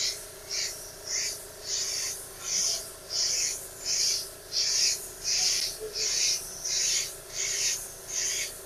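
Siphon-feed compressed-air spray gun spraying red-lead primer, its trigger squeezed and released over and over: short bursts of hissing air and paint mist about every two-thirds of a second, over a faint steady hum.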